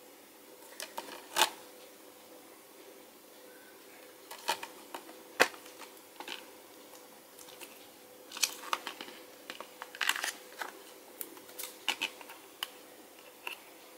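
A plastic Blu-ray case handled and opened in the hands: scattered clicks, taps and rustles of the plastic shell, the sharpest about a second and a half and five and a half seconds in, with a busier run of handling noise in the second half. A faint steady hum sits underneath.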